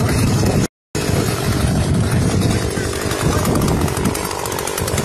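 Gasoline chainsaw running, mixed with heavy rumble on the microphone; the sound cuts out completely for a moment about a second in.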